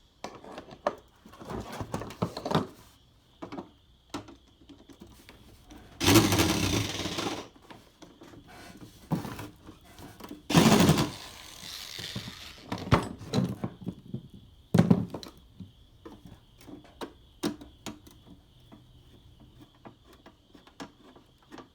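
Scrap pieces being handled and shifted about: a string of knocks and clatters, with two longer loud scraping rattles about six and eleven seconds in, over a faint steady high whine.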